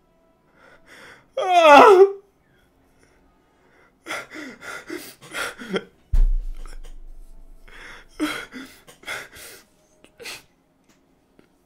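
A young man's choked-up reaction: a high cry-like whimper sliding down in pitch about a second and a half in, then bursts of sharp breaths, sniffs and gasps. A sudden low thump about six seconds in leaves a short dull hum.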